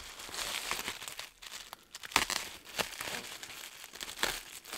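Plastic bubble wrap crinkling as it is pulled apart by hand along a fresh cut, with several sharper crackles, the loudest about two seconds in.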